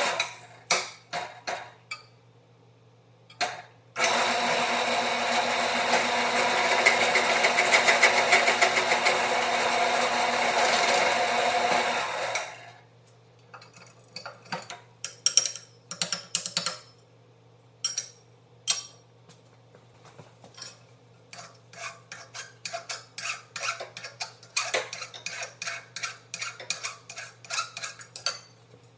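Electric drill running steadily for about eight seconds while drilling out a hole in a metal seat bracket, then stopping. After it, a long run of light metallic clicks and taps as the parts are handled.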